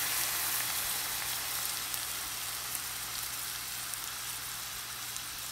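Heavy cream sizzling as it is poured into a hot skillet of sautéed onions and garlic: a steady frying hiss with faint pops that slowly dies down.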